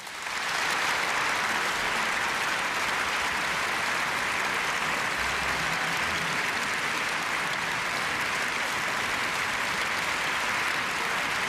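A large audience applauding steadily, the clapping swelling up at the start and then holding at an even level.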